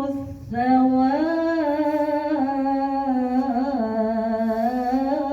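A woman's voice chanting Quranic recitation in a melodic tajwid style, drawing out one long line that steps up and down in pitch. It begins after a short breath about half a second in and carries on without a break.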